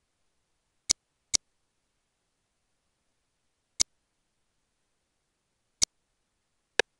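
Five short, sharp computer clicks as the cursor moves over a program's menu buttons, with dead silence between them. The first two come close together about a second in, and the last falls near the end.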